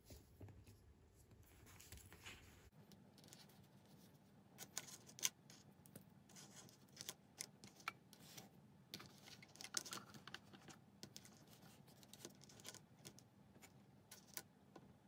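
Small hard plastic toy accessories handled and set down on a tabletop: faint, irregular clicks and taps, coming thicker from about four seconds in.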